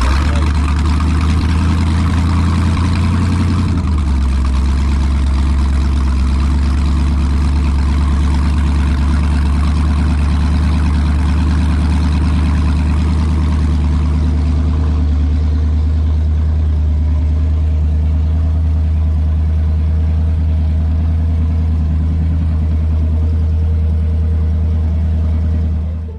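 A speedboat's inboard-outboard (sterndrive) engine idling steadily, with water spitting from its transom exhaust pipes. The engine is run at the dock to draw fresh lake water through its cooling system and flush out salt water.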